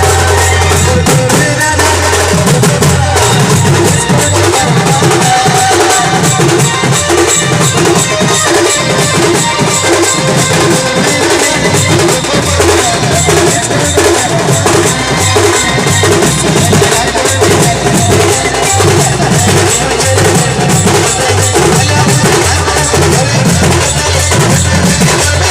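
Sambalpuri band music with a loud, steady drum and bass beat.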